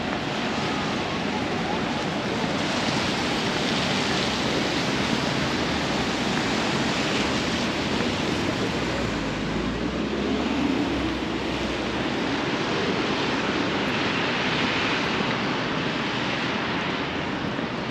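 Traffic on wet city streets: a steady hiss of tyres on wet pavement that swells as vehicles pass, with a deeper engine rumble going by about halfway through.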